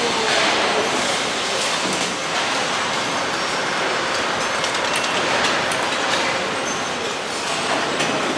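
Motorcycle assembly-line factory noise: a steady wash of machinery sound with scattered light clicks and clinks of tools and parts.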